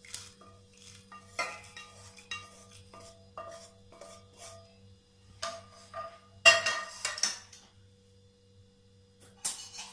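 Wooden spatula scraping and knocking against a nonstick frying pan as roasted grated corn is emptied into a steel pot of milk: a series of short scrapes and taps with a slight metallic ring, loudest in a cluster about two-thirds of the way through.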